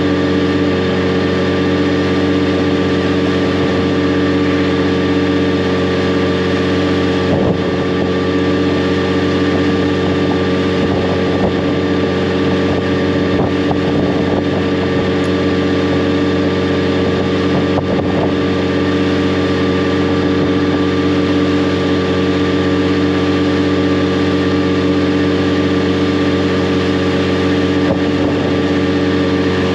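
Yamaha FJR1300 motorcycle's inline-four engine running at a steady cruising speed, its pitch holding level, with wind rushing over the microphone.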